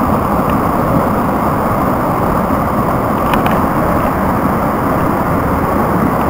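Brook rapids running over boulders: a steady, full rush of whitewater.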